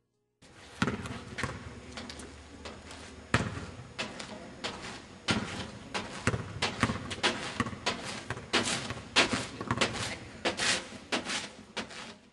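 Basketball dribbled on an asphalt court: an irregular run of sharp bounces, several a second, starting about half a second in, over open-air background noise.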